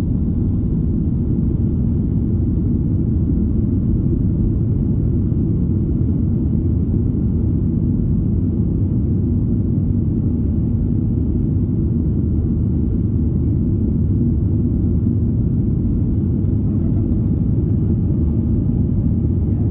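Steady low rumble inside the cabin of a Boeing 737-800, its CFM56-7B turbofan engines and airframe heard from a window seat, holding an even level throughout.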